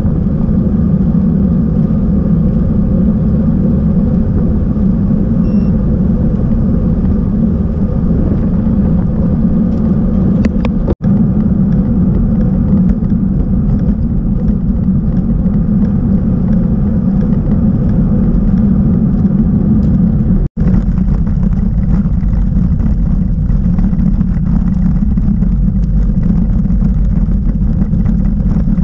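Steady wind rush and road noise on a bicycle-mounted action camera while riding, loud and low. The sound cuts out for an instant twice, about a third and two-thirds of the way through.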